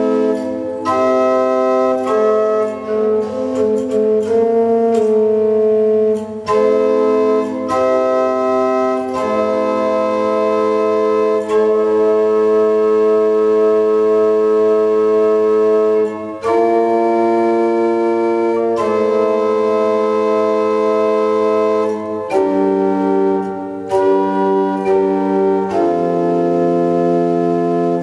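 Organ music: held chords that change every few seconds.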